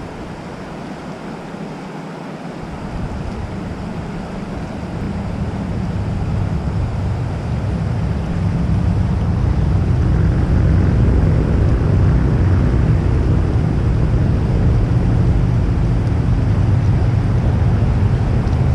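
Rushing river whitewater: a steady roar with a heavy low rumble that builds over the first several seconds and then holds.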